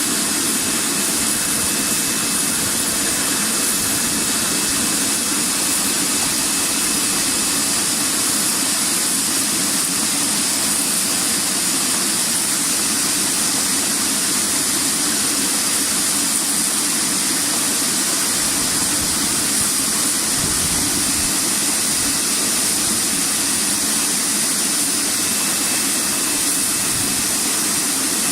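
Bubble-type vegetable washing machine running: a steady, loud hiss of water spray and air bubbling over a low machine hum.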